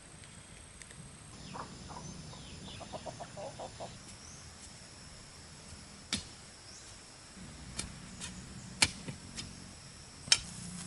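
Rural outdoor ambience: a steady high drone of insects, with short bird calls in the first few seconds. Several sharp clicks or knocks come through in the second half, the loudest two about nine and ten seconds in.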